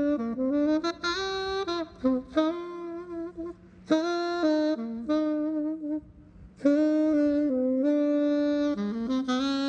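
Tenor saxophone playing a slow melody unaccompanied. It plays held notes in phrases, with short breaths between them and two longer pauses around the middle.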